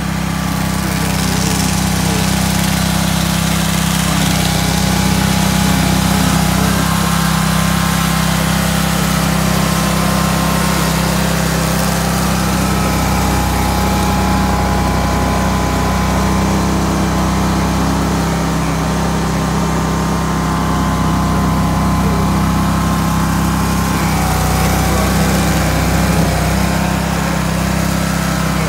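A small engine running steadily at a constant speed, with a strong low hum that does not change.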